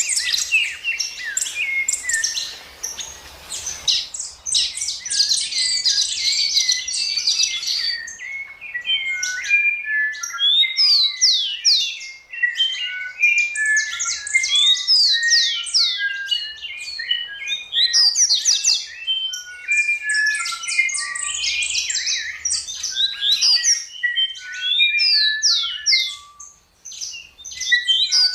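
Songbirds singing: a dense, continuous stream of quick chirps, trills and short falling whistles, with a brief lull near the end.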